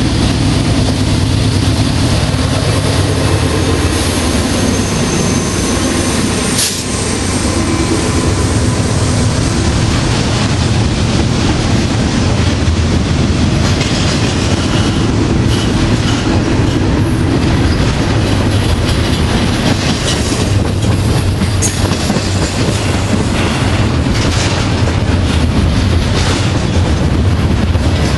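Norfolk Southern double-stack intermodal freight train passing close at speed, first its lead diesel locomotives and then the container well cars. A loud, steady rumble of steel wheels on rail, with repeated clicking as the wheels cross rail joints.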